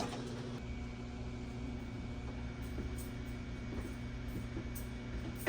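Steady low electrical hum with a faint, even hiss of air: the background drone of a large electrical room.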